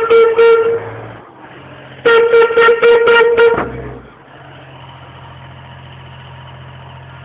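Steam whistle blown twice: a short blast, then a longer one about two seconds later, each a single steady note.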